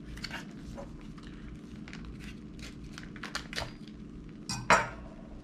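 Light crinkling and small clicks of MRE packets and a tortilla being handled over a metal mess tray, then a sharp double clatter against the tray near the end.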